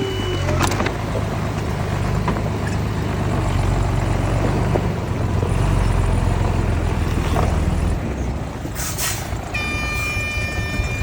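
Heavy diesel earthmoving machinery running with a steady low rumble. Near the end comes a short hiss, then a high, steady whine.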